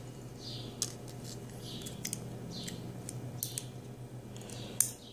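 Small, light clicks of lock pins and tweezers being handled while the pins are sorted and inspected, over a steady low hum. A faint high sound repeats about once a second, and there is a sharper click near the end.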